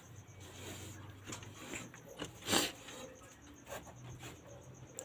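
Light handling noises as a cloth and plastic things are picked up and moved about on a wooden shelf: small rustles and clicks, with one short, louder rustle or scrape about two and a half seconds in.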